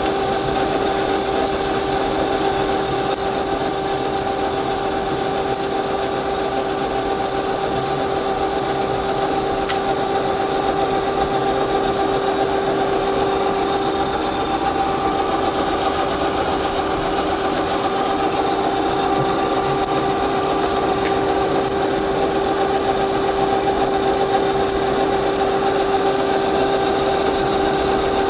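A metalworking machine running steadily, probably machining a piece of 4140 hot-rolled steel: a constant hum with a steady tone over an even hiss.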